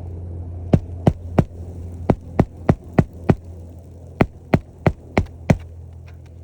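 Hammer driving roofing nails into asphalt shingles: thirteen sharp strikes in three runs of three, five and five, about three a second, over a steady low hum.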